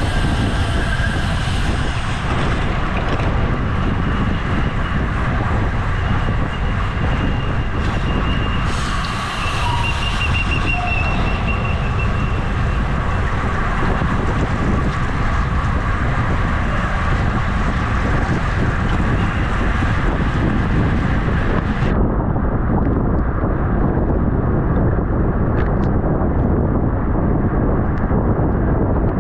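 Wind rushing over a camera microphone on a bicycle racing at speed: a loud, steady rumble.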